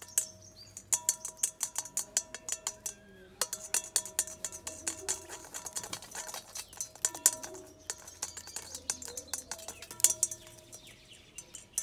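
Background music: a fast, even clicking beat over a steady held tone. The beat drops out briefly about three seconds in and again near the end.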